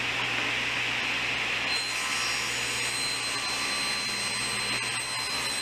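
Table saw running. About two seconds in, its blade starts ripping a narrow strip off a board, and a steady high whine joins the motor's hum and rush for the rest of the cut.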